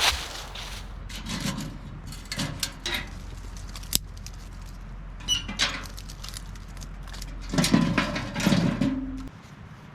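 Pieces of dead wood being handled: irregular knocks and clatters of wood on wood with some rustling, the loudest cluster about eight seconds in.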